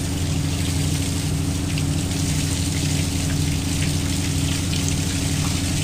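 Water gushing steadily from a 2 hp submersible pump's outlet pipe and splashing onto dry palm fronds and the ground, a strong flow showing the pump delivering good pressure. A steady low hum runs underneath.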